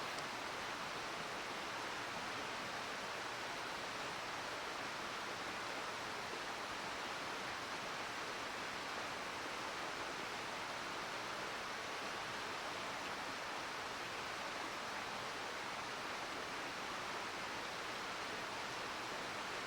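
Mountain river flowing past, a steady, even rushing of water.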